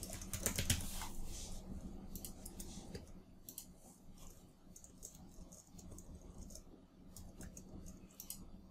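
Typing on a computer keyboard with mouse clicks, a quick run of keystrokes in the first few seconds, then scattered single clicks.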